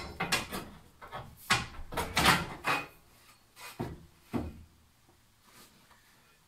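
A sheet of fibre textile rustling and crinkling as it is folded and tucked into a wall bed's metal frame, then two short knocks about four seconds in as a metal rod is picked up against the frame.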